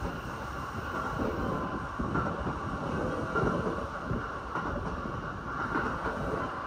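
Steady running noise of a JR Keihin-Tohoku/Negishi line electric commuter train at speed, heard from inside the carriage: a continuous rumble of wheels on rail.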